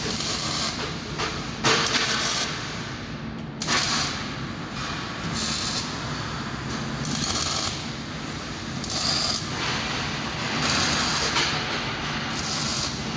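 Electric arc welding on metal: the arc crackles and hisses in short bursts, about one every one and a half to two seconds, as a run of short stitch or tack welds is laid down.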